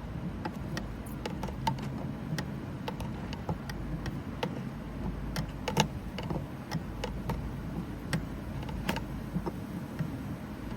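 Irregular light clicks and taps of plastic hose fittings being handled and connected on a hydraulic steering bleed setup, over a steady low rumble.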